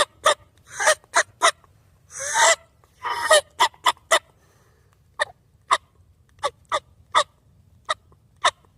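A budget Strut Commander diaphragm turkey mouth call blown in imitation of a hen turkey. It gives runs of short yelps, with a few longer drawn-out notes about two to three and a half seconds in, then a slower string of yelps.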